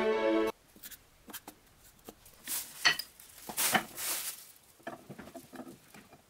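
Background string music stops about half a second in. Then scattered small metal clicks and clinks, with a few louder, longer scraping handling noises in the middle, as a steel ball screw is set into the soft jaws of a machine vice.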